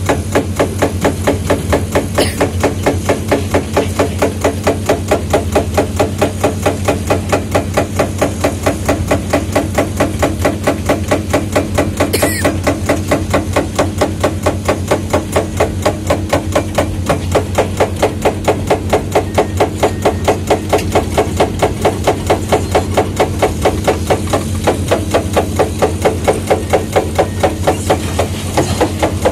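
A quick, even run of mechanical hammer blows over a steady engine drone.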